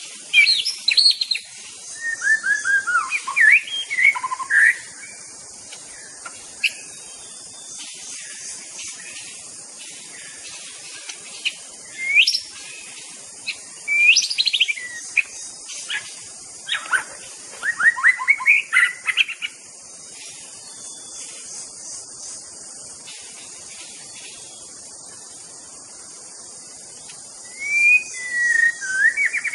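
White-rumped shama (murai batu) singing: bursts of loud, rapid whistled phrases with quick rising and falling sweeps, separated by pauses of several seconds. A faint, steady high hiss runs underneath.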